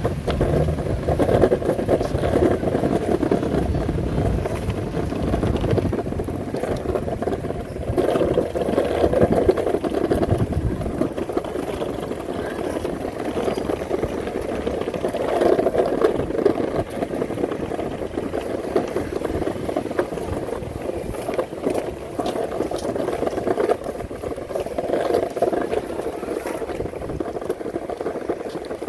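Surfskate wheels rolling over pavement: a steady rolling noise that swells now and then, with a deeper rumble that fades out about ten seconds in.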